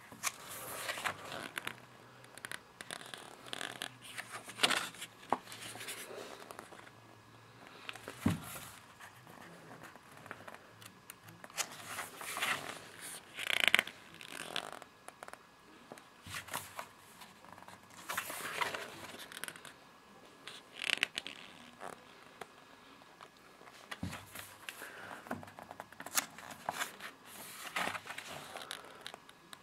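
Paper pages of a DVD box-set booklet being turned and handled, a series of rustling swishes and crackles coming every second or two.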